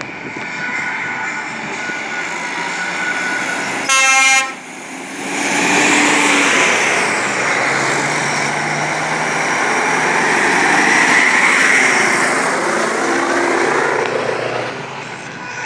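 A truck's horn sounds one short, loud blast about four seconds in. Then a heavy truck's diesel engine passes close by, swelling and easing off near the end.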